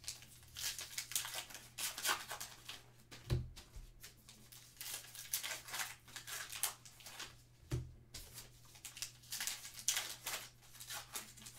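A plastic trading-card pack wrapper being torn open and crinkled by hand, with irregular crackling throughout. There are two soft thumps, about three seconds and about eight seconds in.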